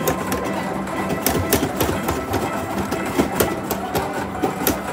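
'Feed the Pig' arcade game launching small balls, with irregular clicking and clattering several times a second as the balls are fired and bounce around the machine, over a steady background din.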